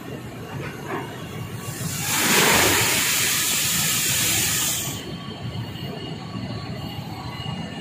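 Crane clamshell grab opening over a hopper and dumping its load of wood chips: a loud rush of chips pouring down for about three seconds, starting a little under two seconds in, over a steady low rumble of machinery.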